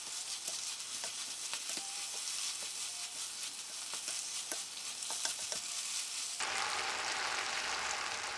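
Water spinach and minced pork sizzling in a frying pan over high heat, with a wooden spatula clicking and scraping against the pan as it is stir-fried. About six seconds in the clicking stops and a steadier, fuller sizzle takes over.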